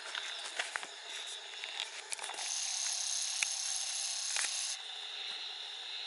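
Outdoor woodland ambience: a steady high-pitched thin drone, joined for about two seconds in the middle by a higher buzz that starts and stops abruptly, with a few scattered light clicks.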